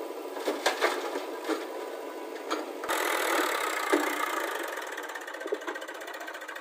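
Diesel machinery engine running, with several sharp knocks and clatters in the first few seconds; the sound becomes louder and fuller about three seconds in.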